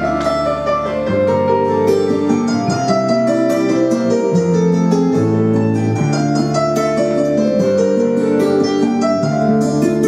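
Instrumental break of a song's backing track from loudspeakers: a quick run of plucked, harp- or piano-like notes over sustained low chords that change about once a second.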